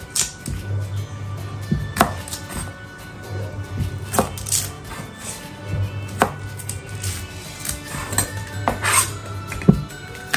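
Knife chopping on a cutting board in separate strikes, over background music with a steady bass line.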